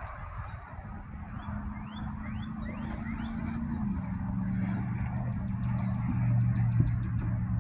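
Distant diesel locomotive of an approaching freight train: a steady low engine hum that grows gradually louder, its pitch stepping slightly lower about four seconds in. A few short rising bird chirps sound over it.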